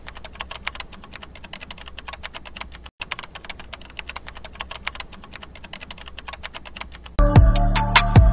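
Rapid computer-keyboard typing clicks, about ten a second, played as a sound effect with a brief break partway through. Loud electronic music with a beat cuts in near the end.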